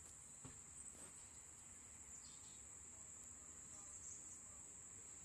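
Faint, steady high-pitched insect trill that runs on without a break, with a couple of soft taps in the first second.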